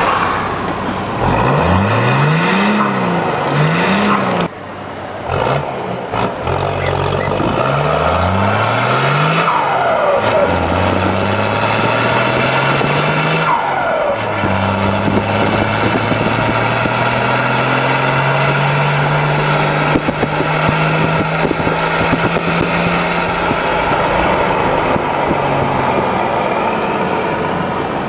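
Chevrolet Silverado pickup engine revving with a deep rumble. It gives a run of quick throttle blips in the first ten seconds, then a long, slow rise in revs that levels off.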